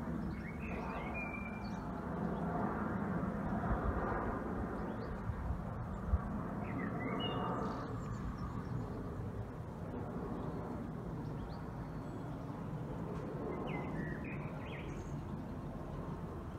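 Bird chirps in three short bouts, about a second in, midway and near the end, over a steady low background rumble.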